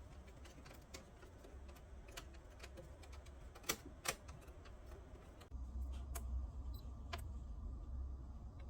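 Faint scattered clicks and light taps, two sharper ones close together near the middle, over a low hum that gets louder about two thirds of the way in.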